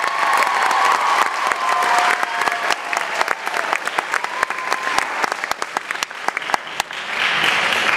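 Audience and choir applauding, with many individual hand claps standing out, growing louder again near the end.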